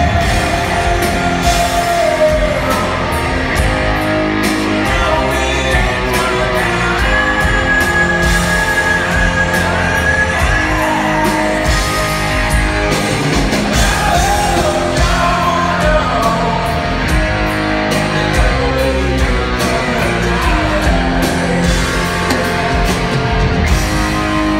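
Live rock band playing, with electric guitars, drums and a singer, heard loud from the audience in a large theatre hall.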